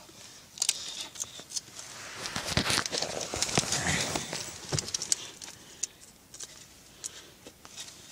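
Clear plastic packaging of a new iPod Touch being handled and pried at to free the player: a run of sharp plastic clicks and crinkling, busiest in the middle and thinning out toward the end.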